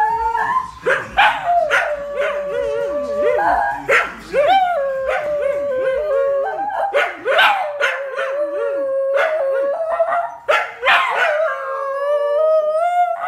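A tan dingo and a small shaggy dark dog howling together. Long, steady held howls are overlaid by higher wavering howls and short sharp yips, going on throughout.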